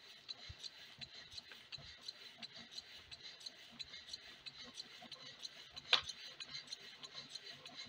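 Home-built alpha-type Stirling engine running, with a quiet rubbing tick from its pistons and crank about four times a second. A single sharper click comes about six seconds in.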